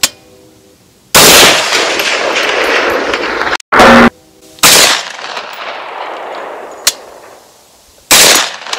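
Three gunshots from a 10mm carbine, roughly three and a half seconds apart, each a loud crack trailing off in a long echo.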